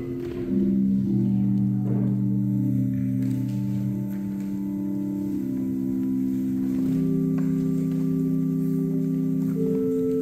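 Organ playing slow, sustained chords, each held for a second or more before moving to the next.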